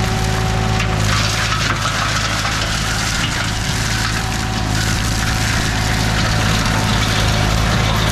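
Green Climber LV600 remote-controlled tracked slope mower running steadily, its engine hum under the noisy whirr of the flail mulching head shredding olive tree branch trimmings.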